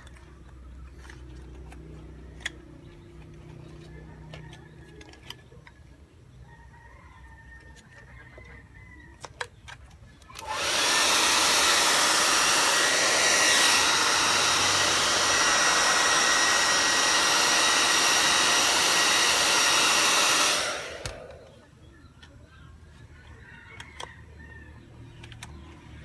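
Handheld hair dryer blowing steadily onto a leather wrap. It switches on a little over ten seconds in, runs for about ten seconds, and cuts off.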